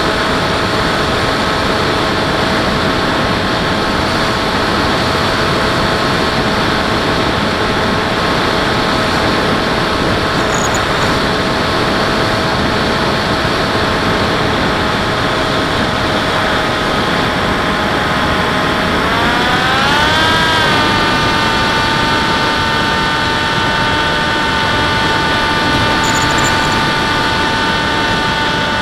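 An RC model airplane's motor and propeller heard from its onboard camera, running steadily with wind rush over the airframe. About twenty seconds in, the pitch rises as the throttle is opened for a climb, then holds at the higher pitch.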